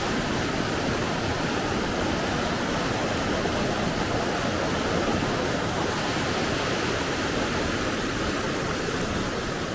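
Steady rush of running water: a fast mountain stream flowing without let-up.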